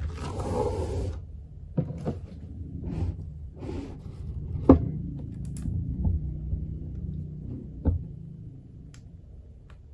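Handling sounds of an iPad 9th generation being unboxed. In the first second the tablet scrapes as it slides out of its cardboard box tray. Then come a few light knocks and taps as it is laid on the box and picked up again; the sharpest is about halfway through.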